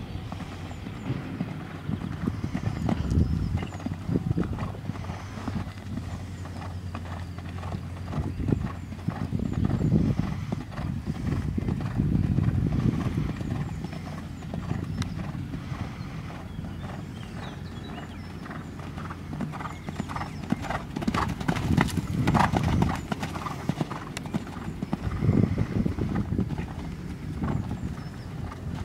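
Hoofbeats of a horse cantering on a sand arena, a steady run of short thuds.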